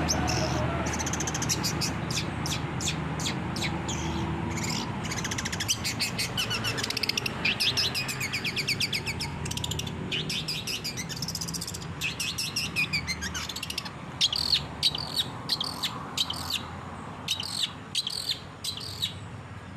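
Long-tailed shrike (cendet) singing a fast, varied chattering song of rapid trills and high notes, with a falling whistle partway through and a run of sharp separate calls near the end.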